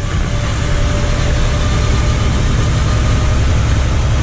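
A loaded truck's engine running steadily under way, a deep, even rumble with a faint steady whine above it.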